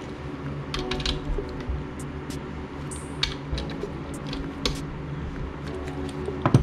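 Steel hand tools clicking and clinking against the metal carrier and bearing caps of a Ford 8-inch differential third member, in irregular light taps with a sharp metallic knock near the end. Background music plays steadily underneath.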